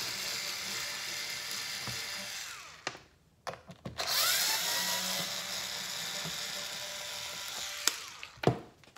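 Cordless electric screwdriver backing out two bolts, its motor whirring in two runs of about three and four seconds with a short pause between them. A sharp knock follows near the end.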